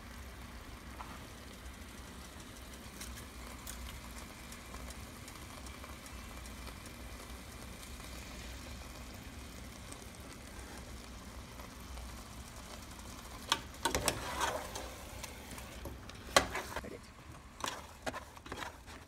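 A pot of efo riro (Nigerian vegetable stew) cooking on the stove with a faint steady hiss. About thirteen seconds in, a spoon starts stirring the stew, scraping and knocking against the pot several times.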